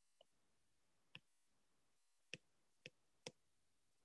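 Near silence broken by a few faint, sharp clicks, about four, spaced unevenly, from a stylus tapping on a tablet screen as handwriting begins.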